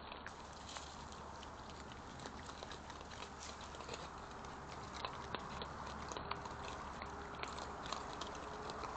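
European badgers foraging and eating in grass close to the microphone: a constant patter of small irregular crunches, clicks and rustles over a steady hiss.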